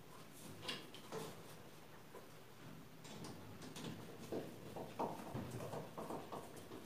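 Scattered light clicks and small knocks of a screwdriver and PVC pipe fittings being worked by hand, fastening the pipe in place, with more of them in the second half.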